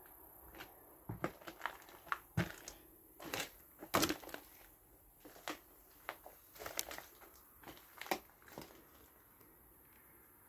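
Irregular crunching and cracking of debris and rotting floorboards underfoot in a derelict house, a dozen or so sharp cracks with the loudest about four seconds in.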